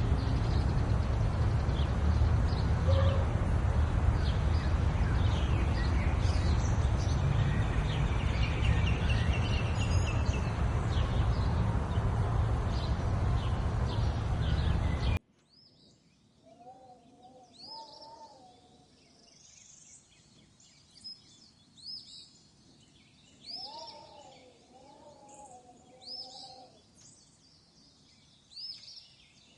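Loud steady rushing noise, heaviest in the low end, with faint bird calls over it, cuts off abruptly about halfway through. Then, in near quiet, birds sing: repeated short high chirps, and twice a run of lower wavering calls lasting a few seconds each.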